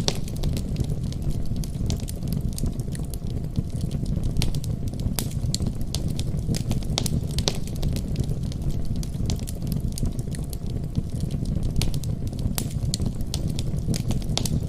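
Wood fire burning in a fireplace: a steady low rumble of the flames with frequent sharp crackles and pops at irregular intervals.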